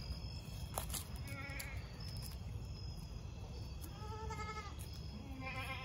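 Goats bleating: three wavering bleats, about a second and a half in, about four seconds in and near the end, over a steady low rumble.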